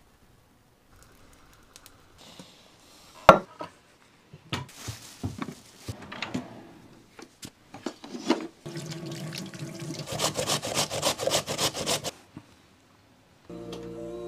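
Kitchen handling noises, with a sharp knock about three seconds in, then about three seconds of rapid rasping strokes: food being grated on a metal box grater.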